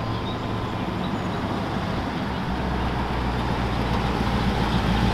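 Engine of a 1932 Ford hot-rod roadster running on a test drive, a low rumble that grows louder about two and a half seconds in, over a steady rush of noise.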